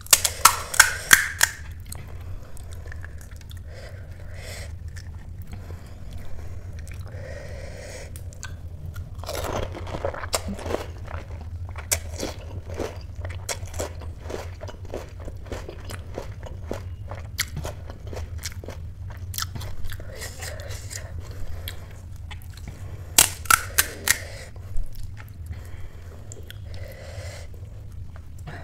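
Crisp panipuri shells crunching in a quick cluster as they are bitten, followed by wet chewing, with another burst of crunches near the end. A steady low hum runs underneath.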